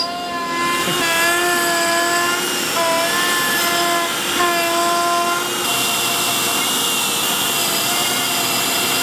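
Shapeoko Pro CNC router's spindle cutting a hardwood block with an upcut bit: a steady whine whose pitch steps a few times as it cuts, turning hissier about halfway through.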